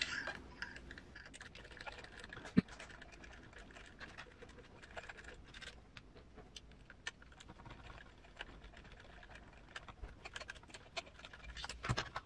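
Faint, scattered clicks and taps of a small hand driver and metal parts as the leaf-spring screws are worked loose on a scale RC truck's chassis. There is a sharper knock about two and a half seconds in and a cluster of clicks near the end.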